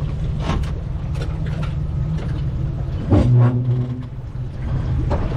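Boat's outboard motor idling with a steady low rumble, rising suddenly and running louder for under a second about three seconds in. A few short knocks sound in the first half.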